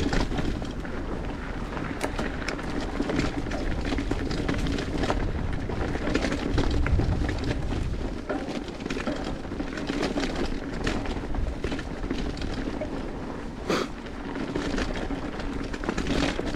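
Mountain bike riding down a rough dirt trail: tyres rolling over dirt and stones, with steady clatter and rattling from the bike and low rumbling wind noise. There is one sharper knock near the end.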